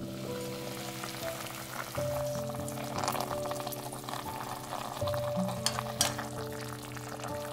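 Soft background music with held melodic notes over cooking sounds from an enamelled cast-iron pot: a sizzling hiss from the pork belly and liquid cooking in it, and a few sharp clicks of metal tongs against the pot about two-thirds of the way in.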